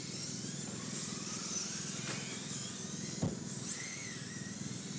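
Several radio-controlled race cars on a dirt oval, their motors giving a high-pitched whine that rises and falls in pitch as the cars speed up and slow through the turns. A single sharp knock comes a little past three seconds in.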